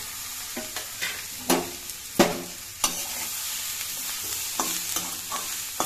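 Onions, tomato wedges and whole spices sizzling in hot oil in a metal kadai while a metal spatula stirs them. The spatula clacks against the pan several times, loudest about two seconds in, with a short metallic ring after each strike.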